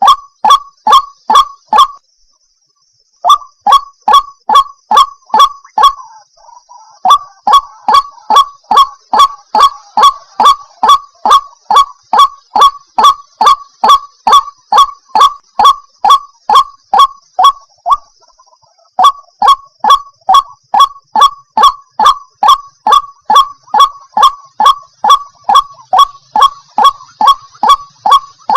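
White-breasted waterhen (ruak-ruak) giving its loud, repeated 'wak' call, about three notes a second, with short breaks about two seconds in and again about two-thirds of the way through.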